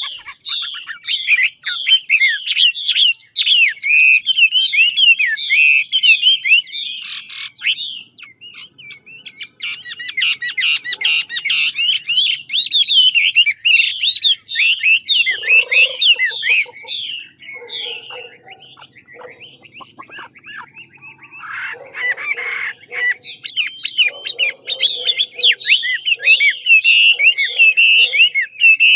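Chinese hwamei (Garrulax canorus) singing a long, loud, varied song of rapid high whistled phrases, with a stretch of harsher, clicky notes around the middle.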